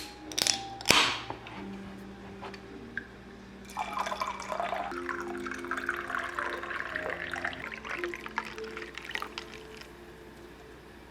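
Liquid pouring and dripping over soft background music, after a few sharp knocks in the first second.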